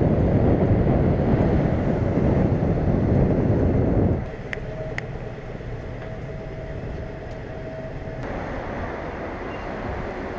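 City street noise heard from a moving bicycle: a loud low rumble that drops away suddenly about four seconds in, leaving quieter traffic noise with a faint steady whine.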